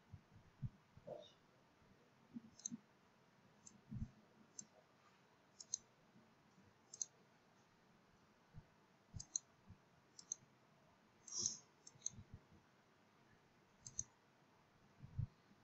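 Faint computer mouse clicks, about a dozen short clicks spaced irregularly, with a few soft low knocks among them.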